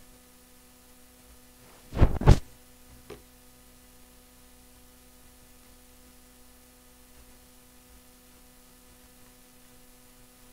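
Two quick knocks about two seconds in, with a faint click a second later, as the plastic model hull and hands bump the work surface, over a steady low electrical hum.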